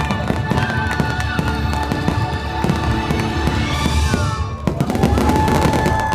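Fireworks display bursting and crackling in quick succession over loud show music, which holds one long note from about three-quarters of the way in.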